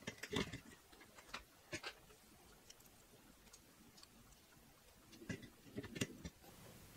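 Faint, scattered clicks and light knocks of aluminium extrusion and plastic parts being handled and set in place on a laser engraver frame. There are several in the first half second, a couple more over the next two seconds, and another group near the end.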